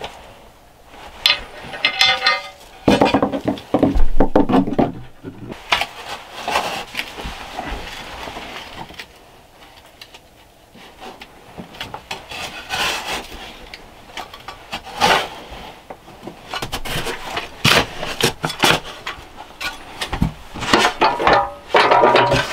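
Shovel digging into a sandy dirt floor: irregular scrapes and chops of the blade into the soil, with short pauses between strokes.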